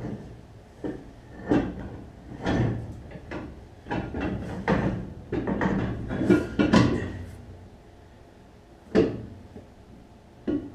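A wheel and tire being worked onto a car's rear hub: irregular knocks, clunks and scrapes, thickest in the middle, then two single knocks near the end.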